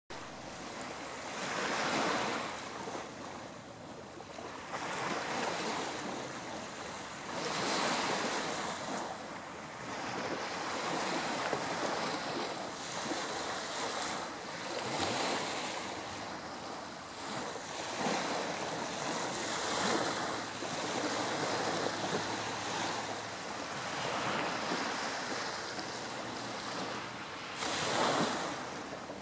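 Small waves of a calm sea lapping and breaking on a sandy beach, washing in with a soft surge every two to three seconds.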